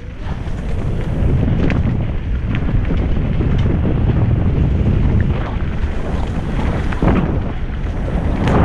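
Wind buffeting the microphone of a helmet-mounted camera on a fast mountain-bike descent, with tyre rumble on the dirt trail. A few sharp knocks and rattles from the bike come through, one about seven seconds in and another near the end.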